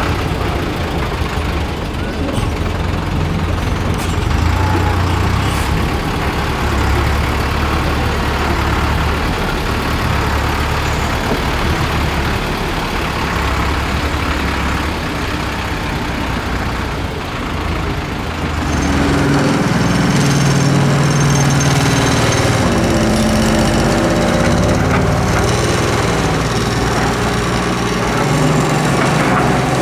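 Diesel engine of a Dongfeng Truong Giang dump truck running steadily as the truck drives slowly. About two-thirds of the way through, the sound changes to the closer, louder diesel of a Doosan Solar 130W-V wheeled excavator working, its engine pitch rising and falling as it digs sand.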